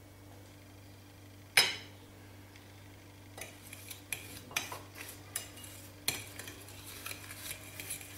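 Metal fork scraping and tapping on a ceramic plate, mixing sugar moistened with a little anise water. A single sharp clink comes about a second and a half in, and a run of small scrapes and clinks follows from about three and a half seconds on.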